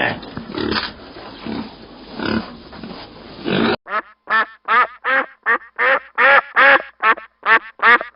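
A pig grunting repeatedly, then about four seconds in a cut to a duck quacking in a rapid run of short calls, about three a second.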